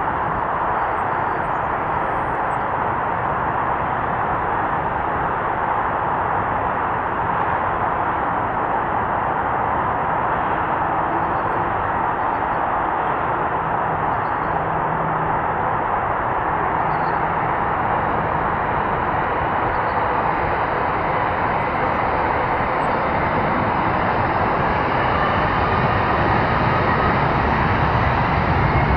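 Boeing 787-9 Dreamliner's Rolls-Royce Trent 1000 jet engines at taxi power, a steady roar that slowly grows louder. In the last few seconds a thin rising whine joins it as the aircraft turns toward the listener.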